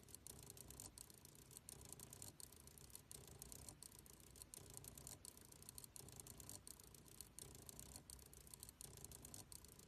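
Faint whir of small geared stepper motors driving a robot arm, starting and stopping in short runs that repeat a little faster than once a second. The motors are driven with acceleration and deceleration ramps.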